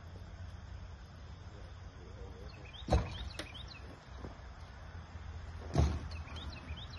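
Steady low outdoor rumble with two sharp knocks about three seconds apart, and a few faint, short, high chirps.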